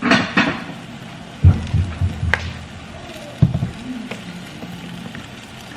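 Cookware being handled on a stovetop: a few knocks and heavier thuds, with a sharp click between them.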